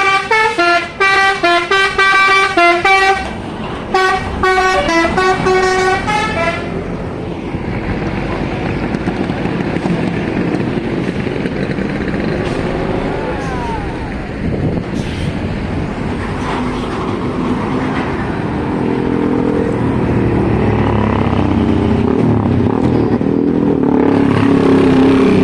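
Tour bus 'telolet' multi-tone horn playing a quick stepping melody of bright notes for about the first six seconds, then giving way to the steady rumble of bus engines and traffic, which grows louder near the end.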